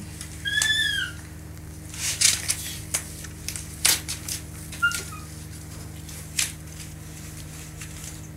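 A young pet monkey gives one short, arched, high squeal about half a second in and a brief chirp about five seconds in, among scattered clicks and rustles, over a steady low hum.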